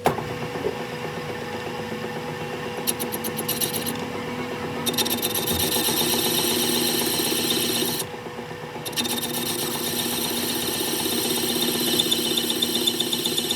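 A metal-working power tool running with a steady motor hum, its rapid rasping cutting noise on the metal breaking off briefly twice and then resuming.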